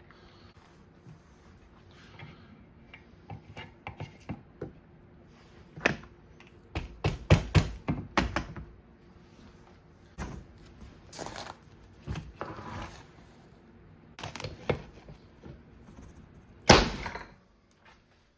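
Clatter and knocks from handling a Ramset .22-calibre powder-actuated nailer and a ratchet, including a run of heavier knocks midway, then one loud sharp bang near the end as the nailer fires a yellow-strength charge, driving a nail through the ratchet.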